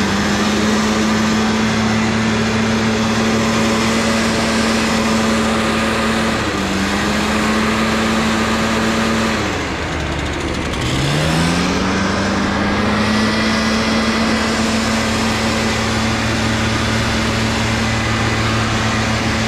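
An engine revving up and running at a steady high speed, easing off briefly about six seconds in, then dropping back around ten seconds in and revving up again to hold steady.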